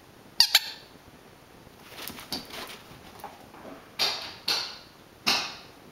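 Squeaker dog toy squeezed in short squeaks: two sharp, loud squeaks about half a second in, a few softer ones in the middle, then three louder squeaks near the end.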